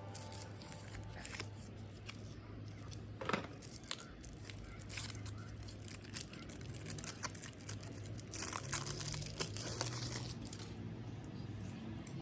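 Packaging being torn open and crinkled, a run of irregular rips and crackles that come thickest near the middle and toward the end.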